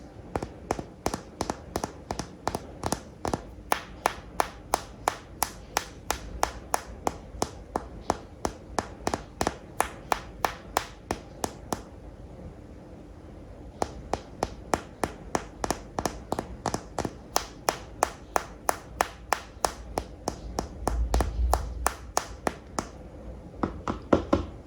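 Rapid, evenly spaced taps or clicks on a hard surface, about three or four a second, pausing for about two seconds midway and then going on. A low bump near the end.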